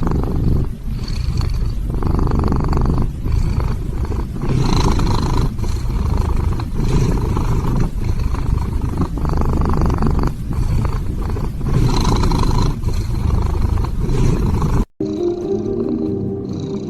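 A cat snoring loudly, a rumbling breath every couple of seconds. Near the end it cuts off abruptly, giving way to a quieter, steadier sound with sustained tones.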